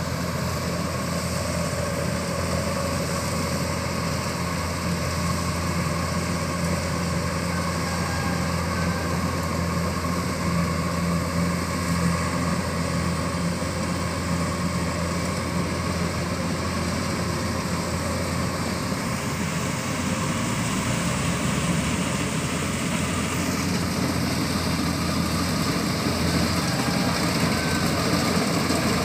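Kubota DC-105X combine harvester running steadily while cutting and threshing rice: a continuous engine drone. The tone shifts slightly about three-quarters of the way through.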